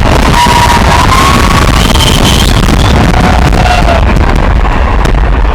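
Large crowd cheering and whistling at a fireworks display, a loud, dense wash of noise with a few long whistles that hold and slide in pitch.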